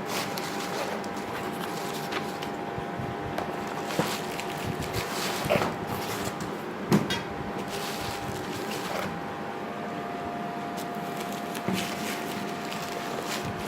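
Packaging being handled: scattered light knocks and taps, the sharpest about seven seconds in, over a steady faint hum.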